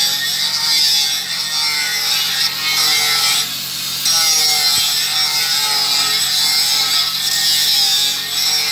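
Angle grinder with an abrasive disc sanding the end of a fibreglass-reinforced RTR pipe: a continuous high grinding hiss with a motor whine that wavers as the disc is worked over the pipe, dipping briefly a few times.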